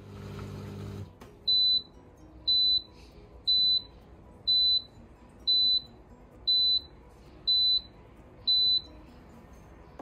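Comfee WQP4-W2601D countertop dishwasher sounding its end-of-cycle signal: eight short, high-pitched beeps about a second apart, marking that the wash-and-dry cycle is finished. A brief low hum stops about a second in, before the beeping starts.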